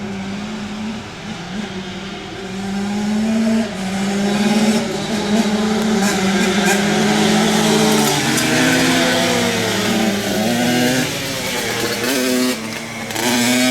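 Several flat track racing engines running hard as the field laps the dirt oval, their pitch rising and falling with each throttle-up and lift. The sound gets louder about four seconds in and again near the end as machines pass close.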